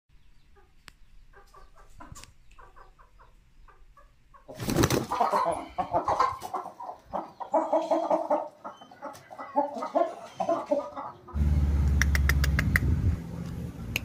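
Aseel roosters clucking, faint at first and much louder from about four and a half seconds in. A loud low rumble takes over for the last few seconds.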